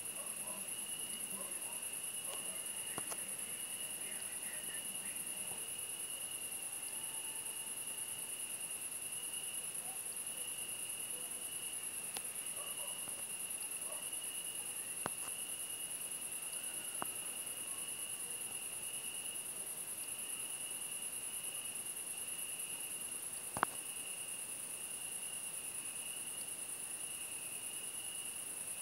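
Crickets trilling steadily at night in two unbroken high pitches, one shrill and one very high. A few faint clicks sound over it, the sharpest about three-quarters of the way through.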